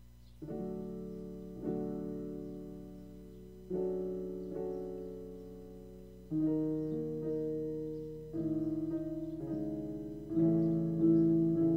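Slow solo piano music: sustained chords struck every second or two, each fading away before the next, growing louder toward the end.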